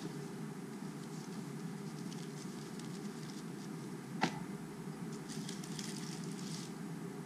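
Hands handling cardboard packaging and a plastic bag: faint scattered rustling and crinkling, with one sharp tap a little after four seconds in, over a steady low background noise.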